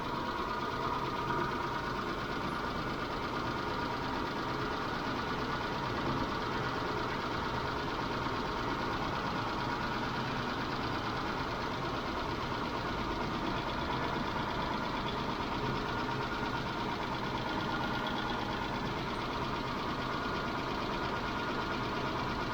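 Mitsubishi Montero Sport's 6G72 V6 engine running steadily with a fast, light ticking from its hydraulic lifters, which the owner takes for worn lifters that a lifter additive has not quietened.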